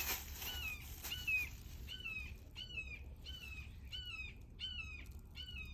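A bird calling over and over: short, slightly down-slurred notes about twice a second. The family takes it for the mother bird calling to its fallen chick.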